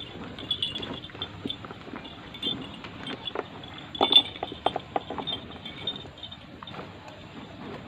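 Cow being milked by hand: jets of milk squirting into a partly full steel pail in quick uneven strokes, with a run of several sharper strokes about four seconds in.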